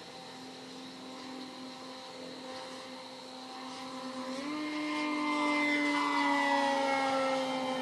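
Electric RC model plane's motor and propeller whining steadily in a high-speed run. About halfway through the whine jumps up in pitch and grows louder as the plane comes close, then its pitch slowly falls as it passes by.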